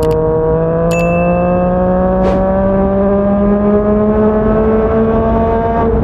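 Yamaha MT-09's three-cylinder engine through a Yoshimura R55 slip-on exhaust, pulling under steady acceleration with its pitch rising slowly, then dropping slightly near the end. A couple of short clicks sound in the first second.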